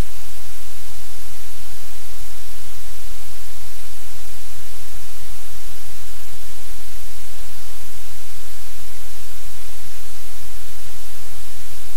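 Loud, steady static hiss with a low rumble underneath, unchanging throughout: noise on the livecam's audio feed rather than sounds from the room.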